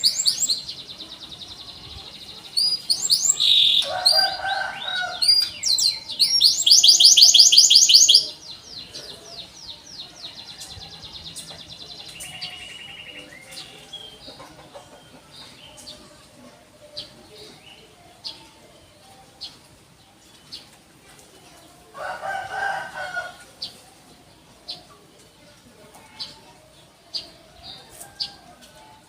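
Domestic canary singing: loud, rapid high trills and rolls for the first eight seconds or so, then only sparse short chirps. A shorter, lower-pitched call breaks in twice, about four seconds in and again about twenty-two seconds in.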